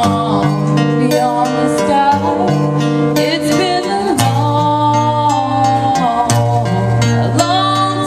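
Music: a guitar song with a bass line that moves in held notes, under a long, wavering melody.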